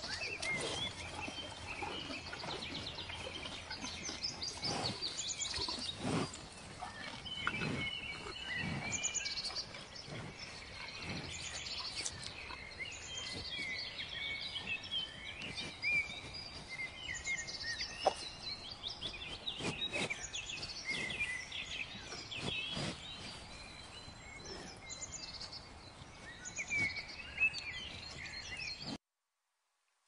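Many small birds chirping and twittering in the background, with a few low thumps.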